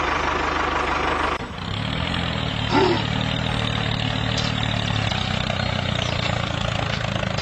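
A motor running steadily with an even, low hum, which dips briefly and settles about a second and a half in.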